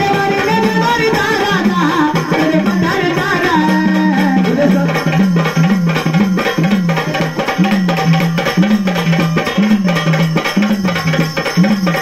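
Instrumental stretch of Marathi gondhal devotional folk music: rhythmic hand drumming whose low tone slides up and down about three times every two seconds, over steady fast percussion strokes.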